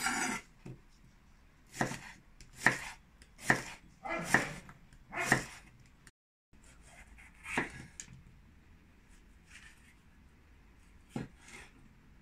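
Knife chopping vegetables on a cutting board: a run of short, sharp strokes about one a second, then a few more spaced out.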